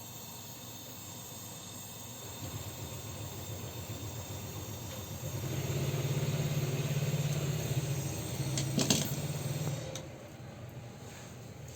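A motor hum that builds up over a few seconds, runs steady for about four seconds with a sharp click near its end, then cuts off.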